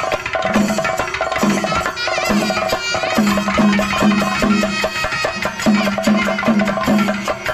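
Traditional South Indian temple-festival music accompanying a dance. Pitched hand-drum strokes that dip slightly in pitch beat a steady rhythm of about two or three strokes a second, over a held drone tone, with a wavering melody line rising above it a couple of seconds in.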